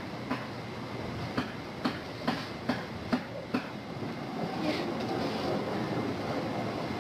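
A wide snow shovel pushed and scraped across a snow-covered driveway: a run of about seven sharp clacks, roughly two a second, then a steadier scraping hiss for the last few seconds.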